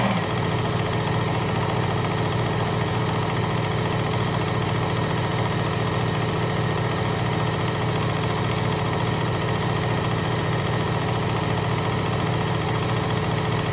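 Work Sharp Ken Onion Elite electric belt sharpener with the blade grinder attachment running steadily: a constant motor hum with the whir of the abrasive belt, no changes in speed.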